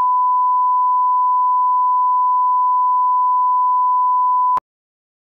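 Steady 1 kHz reference test tone, the bars-and-tone signal that goes with video colour bars, holding one pitch and cutting off abruptly about four and a half seconds in.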